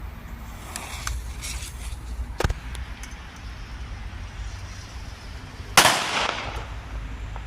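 A Magnum Zeus firecracker going off with one loud bang about six seconds in, followed by a short echoing tail. A sharper, lesser crack comes a few seconds earlier, with faint crackles before it, over a steady low rumble.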